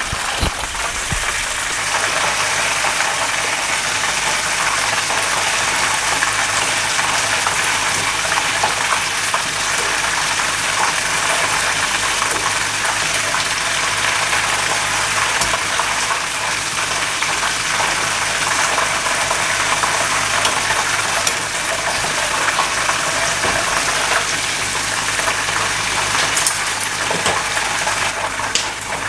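Oysters frying in hot oil in a pan over low heat, a steady sizzle with constant small crackles as they brown.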